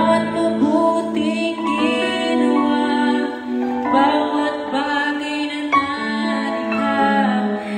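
Music: a song with a voice singing over sustained instrumental accompaniment.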